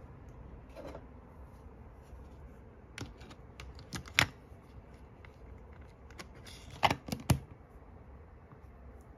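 A cassette tape being set into the open tape compartment of a Sony WM-F102 Walkman cassette player, then the lid pressed shut: a few sharp plastic clicks, the loudest a little after four seconds in and a quick run of three about seven seconds in as the lid latches.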